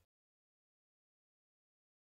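Digital silence: the audio track is cut to nothing between two narrated lines.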